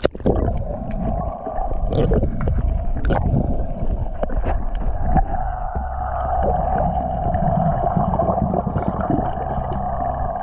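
Underwater sound picked up through the camera's housing: a muffled rush of water with bubbling from a scuba regulator's exhaled breath and scattered small clicks.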